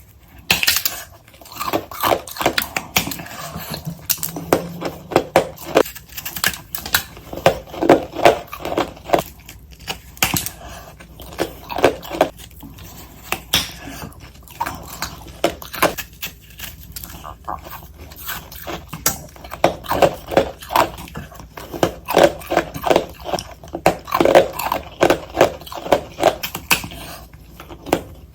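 A person biting and chewing ice close to the microphone, sped up: quick runs of hard, crisp crunches in clusters, with short pauses between bites.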